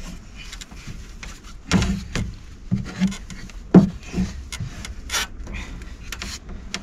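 Handling noise in a cramped cylinder cupboard: scattered knocks, scrapes and rubbing as a person braces against the timber frame and grips a metal expansion vessel. The sharpest knock comes about four seconds in.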